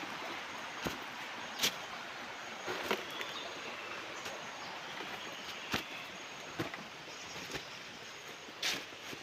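Footsteps on dry bamboo leaves and fallen sheaths, short crunches about once a second, over a steady hiss of running creek water.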